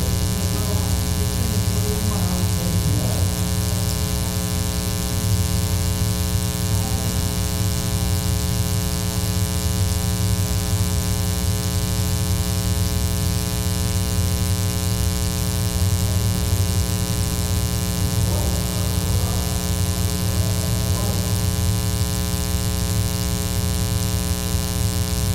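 Loud, steady electrical mains hum: a buzz made of many evenly spaced overtones that does not change, typical of a ground loop or interference in the audio feed. Faint voices rise briefly near the start and again about two-thirds of the way in.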